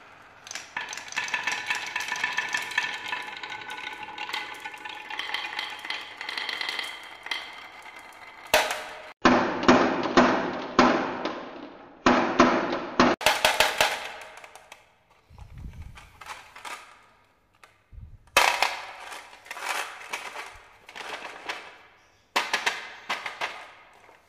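Glass marbles rolling and clattering along wooden marble-run tracks and tumbling into the plastic bed of a toy dump truck. It comes as dense runs of rapid clicks, with a faint glassy ring at first, in several bursts separated by short lulls.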